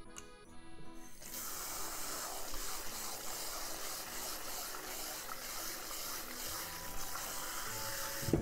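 Kitchen faucet sprayer running a steady stream of water into a stainless steel bowl of rice, starting about a second in, while the rice is rinsed and stirred by hand.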